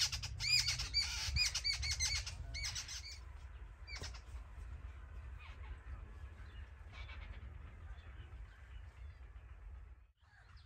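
Birds calling in a tree: a fast run of repeated chirping calls for about the first three seconds, then fainter, scattered calls, over a steady low rumble.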